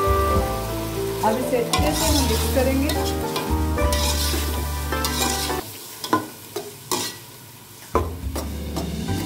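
Peas, tomato and spice powders frying in oil in an aluminium pot with a light sizzle, stirred with a metal slotted spoon that scrapes and knocks against the pot.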